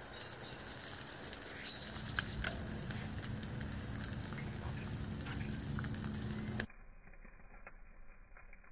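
DJI Mavic Pro's lithium-polymer battery in thermal runaway, venting smoke with a steady hiss and a scatter of crackles and sharp pops, two louder pops a little over two seconds in and a faint high whistle in the first couple of seconds. About two seconds before the end the sound drops abruptly and turns muffled.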